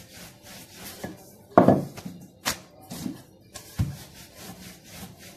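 Pizza dough being worked by hand and pressed into a pan: a few separate knocks and thumps, with a loud one about a second and a half in, a sharp click a second later and a low thump near the middle.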